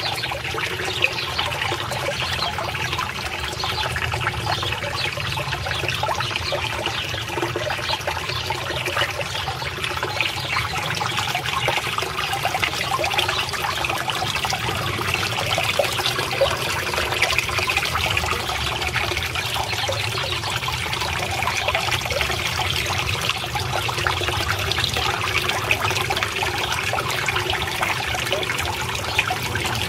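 Water trickling and splashing steadily into a small garden pond.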